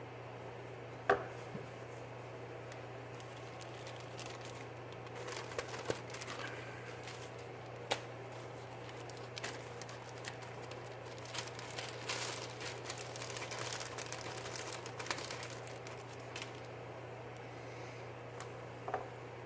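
A knife blade being stropped on a strop loaded with 3-micron compound: faint scraping strokes in spells, with a few sharp clicks, over a steady low hum.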